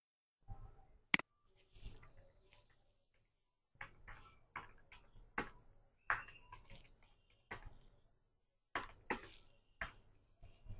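Faint, irregular clicks and taps of a computer keyboard and mouse, with one sharper click about a second in and a run of scattered keystrokes and clicks through the latter part.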